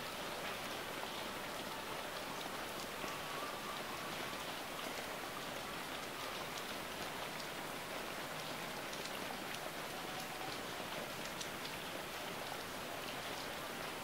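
Steady rain falling on leafy foliage, an even hiss with many individual drops ticking close by.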